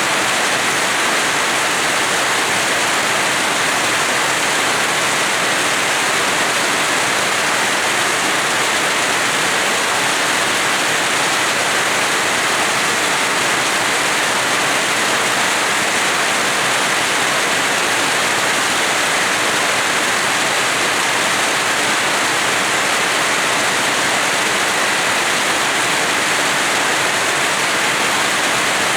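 Steady heavy rain falling, an even, unbroken hiss with no separate drops or thunder standing out.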